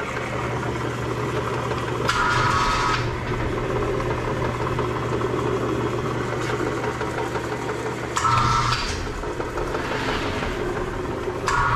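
Gantry-crane hoist motor whining in two short runs of about a second each, lifting and lowering a scrap A/C compressor, over a steady low hum.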